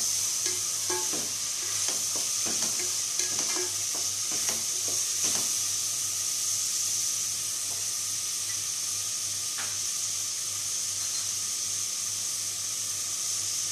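Sliced onions frying in hot oil in a pressure cooker, a steady sizzle as they sauté soft with salt and turmeric. A spatula stirs and scrapes against the pot a few times in the first half.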